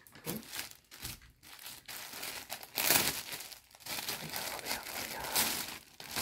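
Clear plastic packaging crinkling and rustling in irregular bursts as hands handle and open it, loudest about three seconds in.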